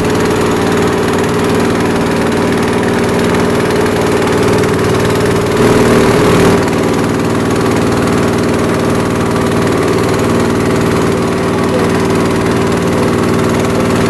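Wooden passenger riverboat's engine running steadily under way, with a broad rush of wind and water over it. It swells briefly louder about six seconds in.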